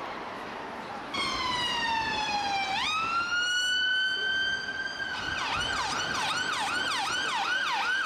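Siren of a UK ambulance response car: a slow falling tone, then a quick rise to a held steady note, then a fast yelp of falling sweeps about two or three times a second, over street traffic noise.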